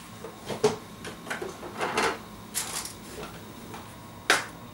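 Bottles and jars clinking and clattering in an open refrigerator's door shelves as they are handled, in a string of separate knocks, then a single sharp knock near the end as the refrigerator door is swung shut.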